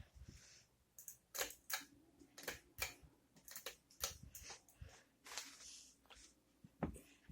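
Concord ceiling fan running with a bad wobble, giving irregular clicks and knocks, a few a second.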